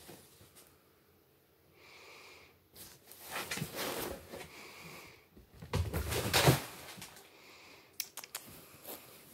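A cat playing close by: two bouts of rustling and scuffling, about three seconds in and again around six seconds, followed by a few light clicks near the end.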